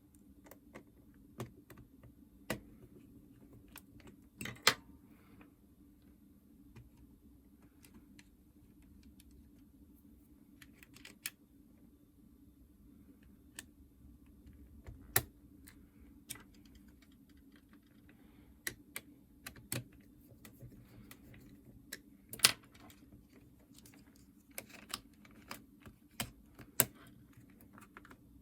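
Scattered light clicks and taps of a small screwdriver and plastic parts as a Nintendo DS Lite's shell is screwed back together, irregular and a few sharper than the rest, over a faint steady hum.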